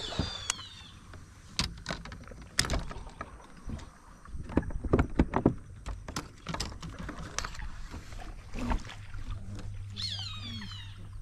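Irregular knocks and clatter on a fishing kayak while a fighting fish is reeled in and brought aboard, loudest in the middle. An animal's high call with a falling pitch sounds at the start and again near the end.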